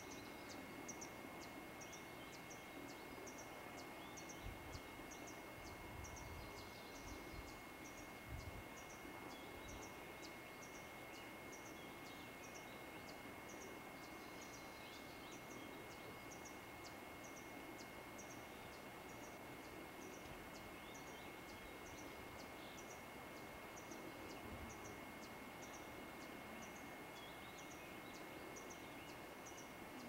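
Faint steady hiss of a VHS-C camcorder recording, with a thin steady high whine. A soft high tick repeats a little more than once a second throughout, and a few low bumps come in the first ten seconds and once later.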